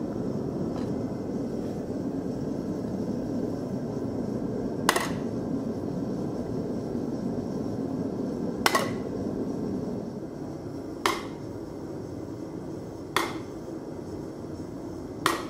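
Set hammer struck with a hand hammer on a hot steel skillet blank, setting down the line around the pan's bottom: five single blows two to four seconds apart, each with a short metallic ring. A steady rushing noise of the propane forge runs underneath and drops a little about ten seconds in.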